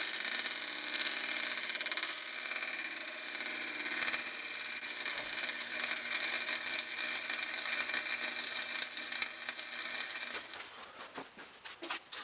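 Flux-core MIG welder laying a bead: a continuous crackling hiss of the arc with the buzz of the wire feed, for about ten seconds, then it stops near the end, followed by a few small clicks.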